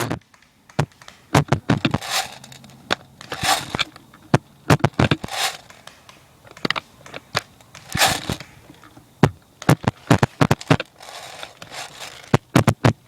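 Irregular crunching and sharp cracks of footsteps moving through dry leaves and brush.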